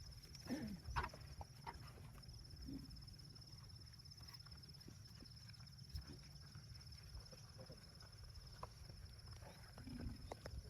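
Cows making a few short, faint low calls and shuffling sounds, over a steady high-pitched insect drone.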